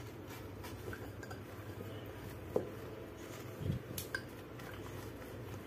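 Wooden rolling pin rolled over a taro leaf on a wooden cutting board: faint rubbing, with a few light knocks of wood on wood around the middle.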